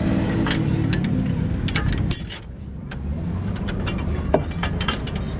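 A steady low engine-like rumble with scattered sharp metallic clicks and knocks over it. The sound briefly drops away a little after two seconds in.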